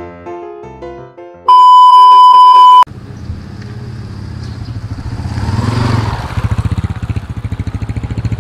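A few piano notes, then a loud, steady, high electronic beep of just over a second. After it, a Yamaha Scorpio's single-cylinder motorcycle engine is heard approaching, its low pulsing exhaust growing louder as the bike rides up and then running slowly with a distinct putter.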